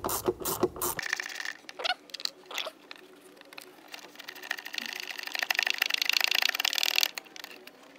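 Ratchet wrench clicking as it backs out the small T25 Torx screws holding a mass airflow sensor to its airbox. A few separate clicks come first, then a long run of fast, even clicks from about halfway through that stops shortly before the end.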